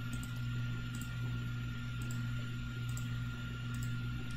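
Steady low electrical hum that the owner blames on a Surface Pro 4 heating up while recording the screen, with faint scattered clicks on top.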